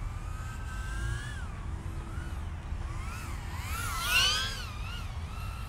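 Brushless motors of a BetaFPV Meteor75 75 mm whoop quadcopter whining, several pitches rising and falling together as the throttle changes in freestyle flight; the whine is loudest about four seconds in as it passes close by. A steady low rumble runs underneath.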